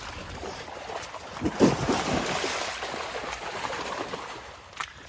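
Water and mud sloshing and splashing as someone wades through deep, muddy floodwater in waders, louder for a second or two about a second and a half in.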